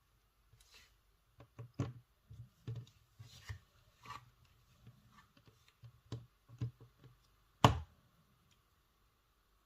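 Hands working plasticine with small modelling tools: scattered light taps, clicks and rubbing on a work surface, with one sharper tap a little after seven seconds in.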